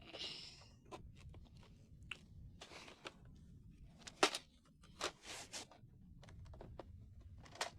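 Plastic and cardboard toy-blaster packaging being handled and pulled at: faint scattered crinkling and small clicks, with a few sharper clicks near the middle and just before the end.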